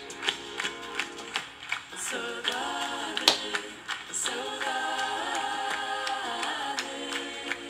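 Song playback: a light clicking beat for about two seconds, then a group of voices singing slow harmonies with little or no accompaniment, holding a long chord through most of the rest.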